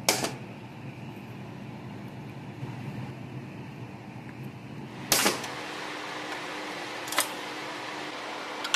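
Steady low mechanical hum like a fan running, broken by three sharp clicks spread across it.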